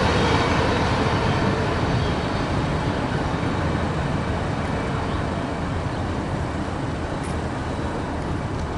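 A passing train's rumble and wheel noise on the rails, a steady roar that slowly fades.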